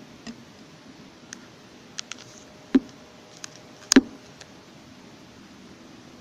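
Scattered light clicks and taps over a steady faint hiss, with two louder knocks about three and four seconds in.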